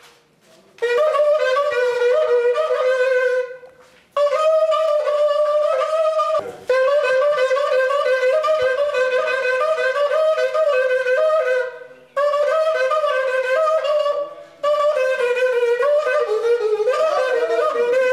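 A wind instrument playing a melody of long held notes, with a brief pause every few seconds, over a faint steady low hum.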